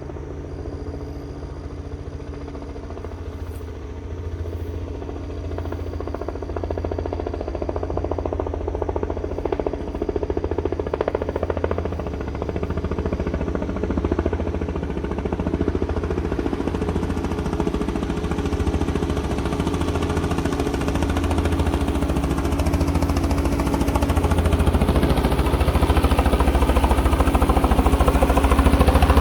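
Small helicopter's engine and rotor running, a fast low rotor chop under a steady engine tone, growing gradually louder.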